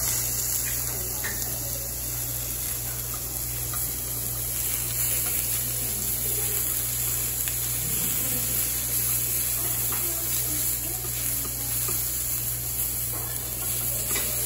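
Pork belly, squid and shrimp sizzling steadily on a hot steel tabletop grill tray, over a steady low hum, with a few light clicks of metal tongs and scissors on the tray.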